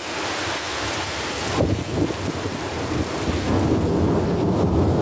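Thunder rumbling over steady rain, the low rumble starting about a second and a half in and growing louder through the rest.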